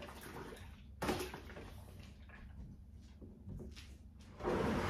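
Knocks and clatter of an O-Cedar spin mop's plastic handle and bucket being handled, with a sharp knock about a second in. Near the end a louder, steady noisy sound starts as the mop bucket is taken up and moved.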